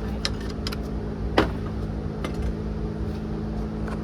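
Scattered sharp metallic clicks and knocks of hand tools and parts being handled on the engine during belt work, the loudest about a second and a half in, over a steady low machine hum.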